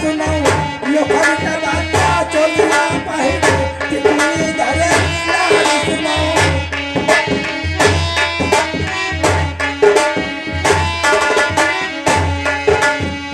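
Instrumental music: a hand drum, tabla-like, playing a quick, steady rhythm under held melodic notes.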